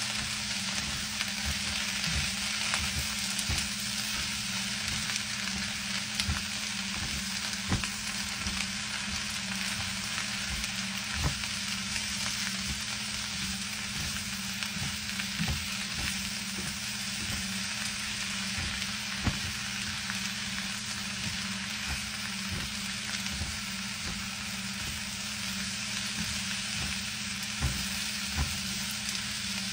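Shredded cabbage and onions sizzling steadily in olive oil in a skillet while being tossed with tongs, which clack against the pan at irregular moments.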